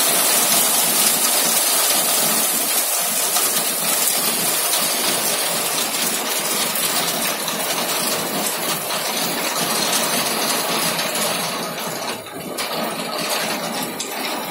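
Hail mixed with heavy rain pelting a car's metal body and the ground: a dense, steady clatter of many small impacts, dipping briefly about twelve seconds in.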